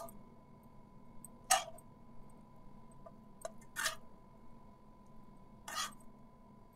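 A spoon tapping lightly against a kadai and plate while paneer stuffing is spooned onto a kulcha: four or five short clicks a second or two apart, with a faint steady hum underneath.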